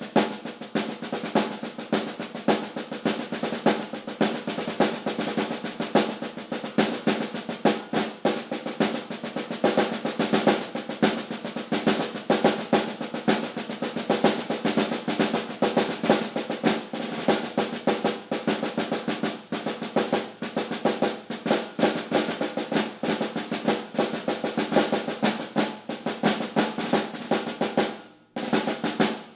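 Snare drum played with sticks in a rudimental solo: rapid, continuous strokes and rolls with accented hits, broken by a short pause about a second before the end.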